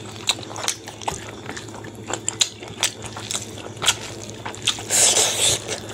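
Close-up wet eating sounds: open-mouthed chewing and lip smacks in quick short clicks, and rice and pork curry being squished and mixed by hand. About five seconds in there is a louder, longer wet squelch.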